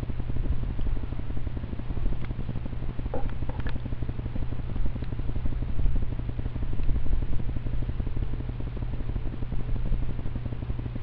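Steady low rumble of wind on the microphone, with a few faint clicks a couple of seconds in; no shot is fired.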